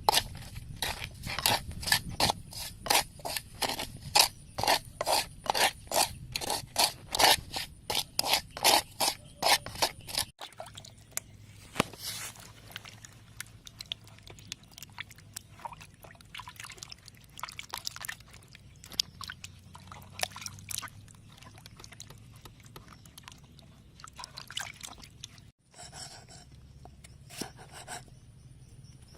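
Hand scraping in quick, even strokes, about three a second, for roughly the first ten seconds. Quieter, irregular scrapes and light knocks follow.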